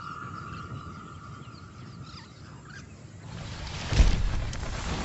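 Leopard dropping from a tree onto an impala: a rush of noise builds about three seconds in, then a heavy thud at about four seconds as it hits, followed by scuffling in dry grass and dust. Before the attack there is a steady high tone with faint bird chirps.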